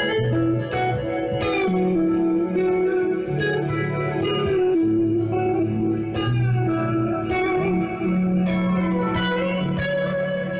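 Clean electric guitar, an Ibanez GRG270 with Seymour Duncan '59 humbuckers (SH-1N and SH-1B), playing picked notes over held low notes through heavy delay, so each note's repeats overlap into a sustained wash.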